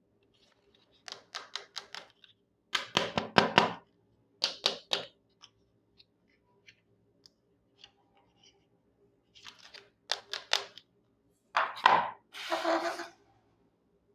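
Small plastic pieces of a miniature toy kitchen set being handled, clicking and tapping against each other in short clusters of sharp clicks, with a few single ticks between them and a brief scraping rustle near the end.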